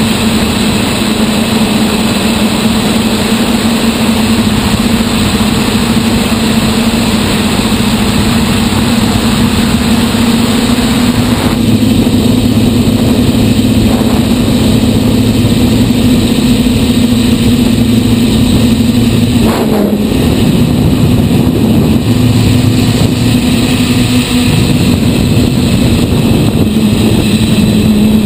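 Six brushless motors of a hand-built DJI F550-style hexacopter spinning 10-inch propellers in flight, a steady buzzing hum heard from a camera mounted on the frame. About twenty seconds in the pitch dips briefly and comes back.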